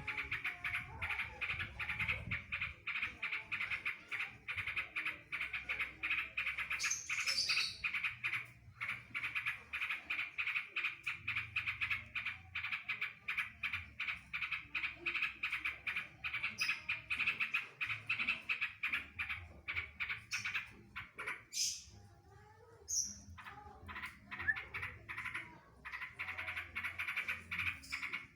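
Trucukan (yellow-vented bulbul) singing a long, rapid rattle of repeated notes, the 'drodot' burst learned from the greater green leafbird, with a few higher notes mixed in. It breaks off briefly about 8 seconds in and again for about two seconds past the 21-second mark.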